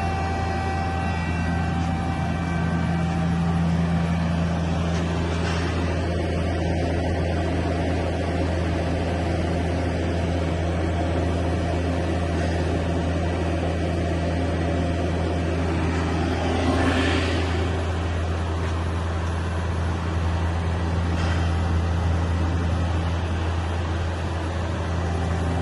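Steady low machine hum of a powered Okuma LB3000EX CNC lathe. A few higher whining tones die away in the first couple of seconds, and a brief rushing swell comes a little past the middle.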